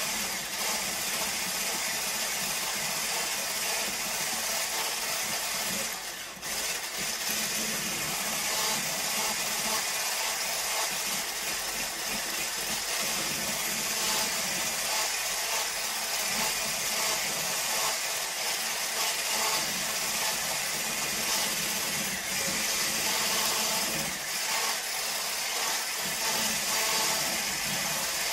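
Handheld electric whisk running steadily, its whisk beating cold, firm shea butter in a glass jar, with a brief dip in the motor sound about six seconds in.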